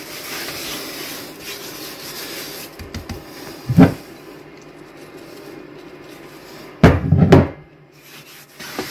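Hands rubbing salt and ground pepper into the scored rind of a pork roast in a metal roasting tray: a soft, steady rubbing. A dull knock comes about four seconds in, and a louder double thump about seven seconds in.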